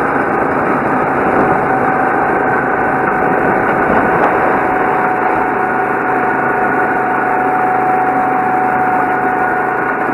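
Go-kart engine heard from onboard the kart, running steadily at speed with its pitch holding nearly level.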